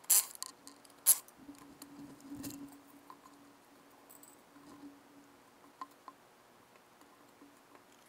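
Wheel being taken off an ATV's hub: two sharp metallic clanks in the first second or so, a dull thud about two seconds in as the wheel comes off, then a few light clicks.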